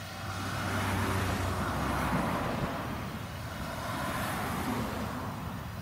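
Claas Lexion 770 TT combine harvester running while harvesting, a steady low machine drone under a rushing noise that swells about one to two seconds in and again around four seconds.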